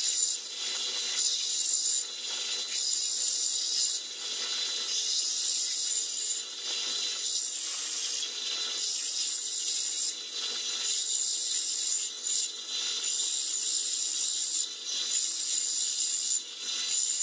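Belt sander running with a loud, hissing grind as a small round disc is held against the abrasive belt. The grind eases and swells every second or two as the piece is turned and pressed.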